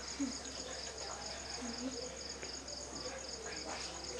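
Insect chirping steadily, a high-pitched pulse repeating about eight times a second, with faint voices in the background.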